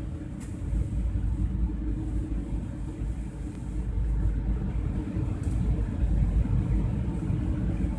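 Airbus A320-200 cabin noise in flight: a steady low rumble of engines and airflow heard from a window seat, with a faint steady hum.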